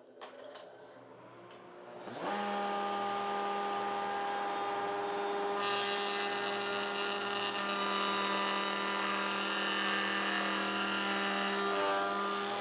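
Router in a router table spinning up about two seconds in with a quick rising whine, then running steadily at speed. From about halfway through, a rail-and-stile coping bit cutting across the end of a wood rail adds a higher rushing cutting noise, which stops shortly before the end.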